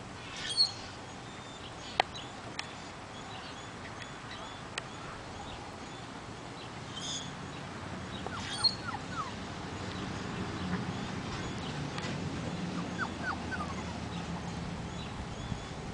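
A puppy whimpering in short, high squeaks that come a few at a time, with small birds chirping in the background.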